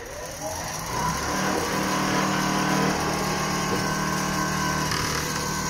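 Richpeace CNC template sewing machine speeding up to full stitching speed: the motor whine rises about a second in, then holds a steady high-speed hum with a fast, dense needle clatter.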